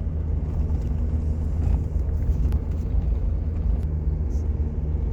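Steady low rumble of a vehicle driving, heard from inside the cab, with a few small ticks and rattles.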